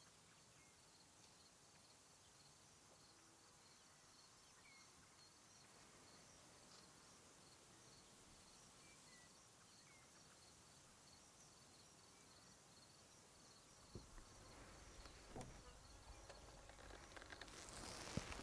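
Near silence: faint insect chirping, evenly repeated about twice a second, with a few faint bird chirps. Near the end come a couple of soft knocks and a swell of rustling.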